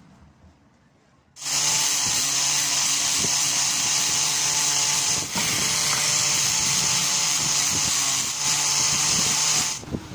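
A handheld electric tool runs steadily with a loud, high rushing noise. It switches on about a second and a half in, dips briefly around the middle, and cuts off just before the end.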